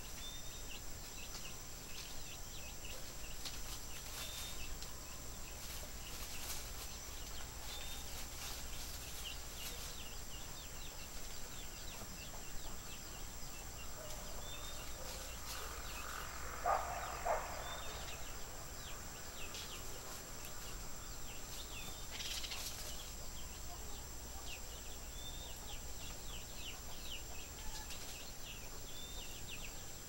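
Outdoor farm ambience: a steady high drone under many short, high chirps from small birds, with one louder animal call lasting about a second about halfway through.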